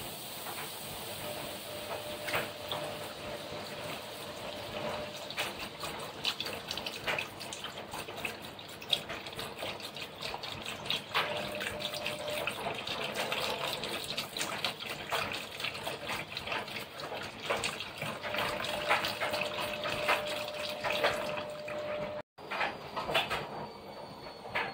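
Chicken stock poured from a carton into a hot paella pan, splashing onto the sofrito and sizzling with many small crackles as the liquid hits the hot pan.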